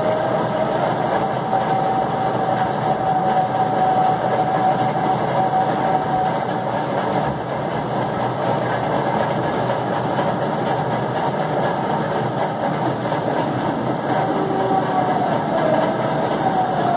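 A steady mechanical drone, like a motor running, with a faint held hum that comes and goes.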